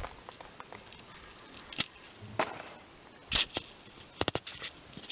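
Handling of a carp rod and reel: scattered sharp clicks and knocks, with a heavier knock about three and a half seconds in and a quick run of clicks just after four seconds.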